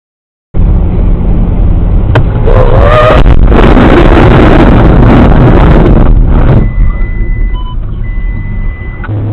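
Dash-cam recording of a road vehicle: steady engine and road rumble, then a sharp knock about two seconds in, a brief squeal and a few seconds of loud noise, typical of a collision. Near the end come steady electronic beep tones.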